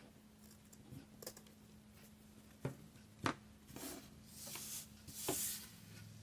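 Scissors snipping wire-edged ribbon: a few faint sharp clicks, then short rustles of the ribbon being handled.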